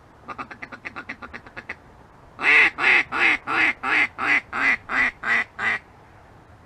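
Mallard duck call blown by a hunter calling to mallards: first a quick run of about a dozen short quacks, then, after a brief pause, about ten louder, longer quacks at roughly three a second.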